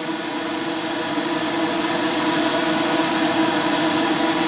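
Hobby spray booth's extractor fan running steadily: an even whoosh of air with a constant motor hum, growing slightly louder.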